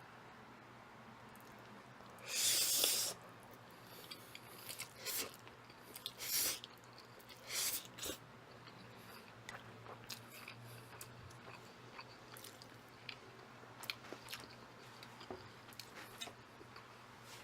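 Close-miked eating of jjajang ramen noodles: several loud slurps of noodles in the first half, then steady wet chewing with small mouth clicks.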